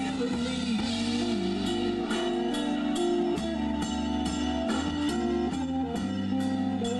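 Live blues band playing, an electric guitar line over a steady drum beat and bass.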